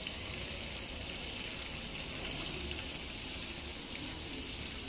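Steady hissing background noise with no distinct events.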